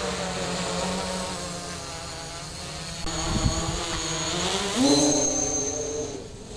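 Quadcopter with four Multistar 2213 980kv brushless motors spinning 9x4.7-inch props on a 4S battery: a steady motor-and-propeller hum whose pitch shifts with throttle, stepping up in pitch and getting louder about five seconds in.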